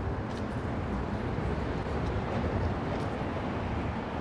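City street traffic: cars driving past, a steady rumble of engines and tyres that swells a little about halfway through.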